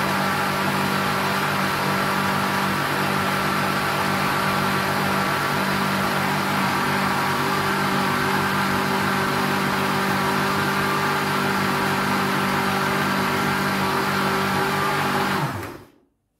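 Exquisit MU 3002 stand blender's 500-watt motor running steadily, its four stainless steel blades churning an orange liquid mix in the jug: a loud, steady hum with a whine over it, a little bit noisy. It stops near the end.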